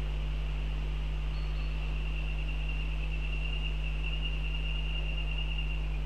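Steady low electrical hum from the nest camera's audio, with a continuous high-pitched buzz that grows stronger in the second half and a brief high whistle about a second in.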